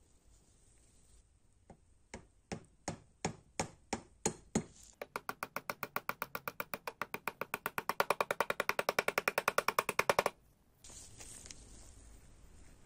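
Light hammer taps driving a pin down through the hinge knuckles of a metal razor case held in a vise. First comes a spaced series of about nine sharp taps, then a fast even run of about eight taps a second that grows louder before cutting off suddenly.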